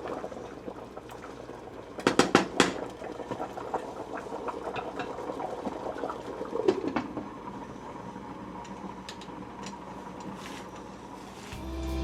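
A pot of beef curry simmering and bubbling, with a few sharp clinks of a utensil against the pot about two seconds in. Guitar music comes in at the very end.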